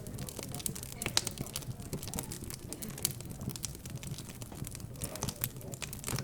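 Fireplace crackling, with irregular sharp pops and snaps, one louder about a second in, over a low hum of background chatter.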